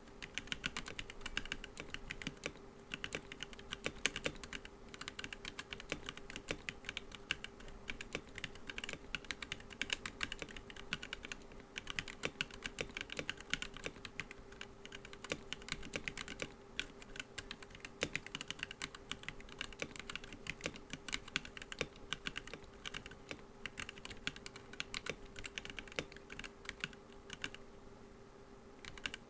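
Continuous typing on a Womier K87 mechanical keyboard fitted with POM keycaps: a rapid, dense stream of keystroke clicks that pauses briefly near the end.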